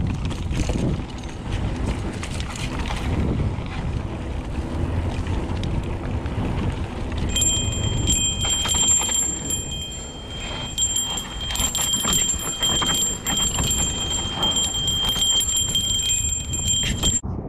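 Mountain bike riding down a dirt singletrack: the tyres roll over dirt and the frame and parts rattle, with many small knocks, under a continuous rumble. From about seven seconds in, a steady high-pitched squeal runs on top and cuts off shortly before the end.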